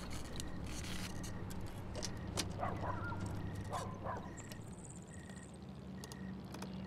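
Light clicks of a small metal tool working at a sign plaque's post mount, with a couple of short animal calls about two and a half and four seconds in and a brief high buzzing trill around the middle, over a low steady hum.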